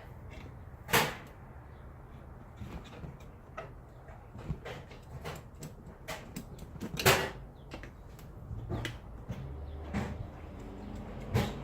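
Scattered metal clunks and clicks of tools and parts being handled while a Mopar power steering gearbox is taken apart, with two louder knocks about a second in and about seven seconds in.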